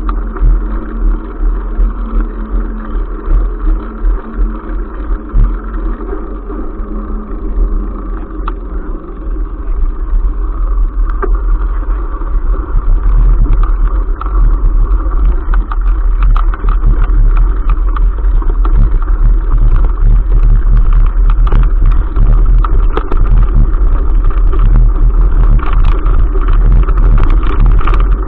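Mountain bike riding along, heard through a camera on the bike as a steady low rumble and rattle of tyres and frame. It gets louder and rougher about halfway through as the tyres leave smooth concrete for gravel and grass.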